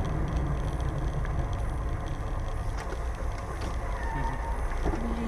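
Steady low rumble of a car's engine and tyres on the road, heard from inside the cabin through a dashcam microphone while driving.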